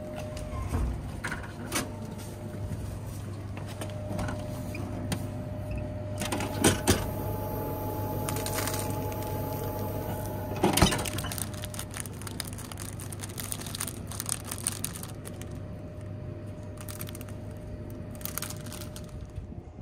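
Cake vending machine vending: a steady low hum with a faint motor whine that comes and goes, and a few sharp clacks from the delivery-port flap, the loudest about 11 seconds in.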